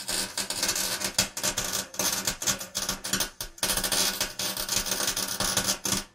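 Crackling, hissing welding-arc sound effect, broken by brief irregular gaps.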